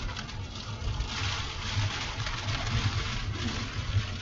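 Rain and wind beating on a moving vehicle, a steady noise, over the low, constant rumble of the vehicle driving on a wet, slick dirt road; heard from inside the cab.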